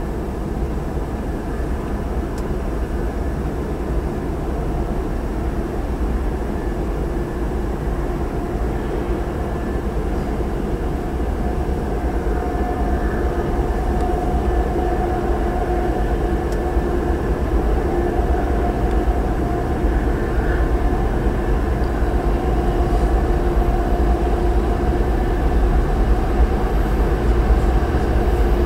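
Steady low rumble of an approaching Norfolk Southern train, slowly growing louder, with a steady tone joining about twelve seconds in.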